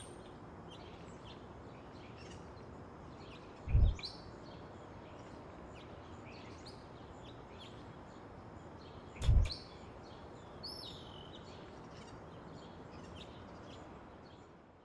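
Outdoor ambience with small birds chirping over a steady background hiss, broken by two short, deep thumps about four and nine seconds in. It fades out near the end.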